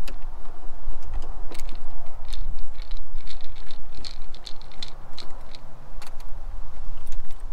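Hand screwdriver backing screws out of the edge of an RV entry door lock: scattered small metallic clicks, ticks and scrapes, with a cluster of quick ticks in the middle, over a steady low rumble.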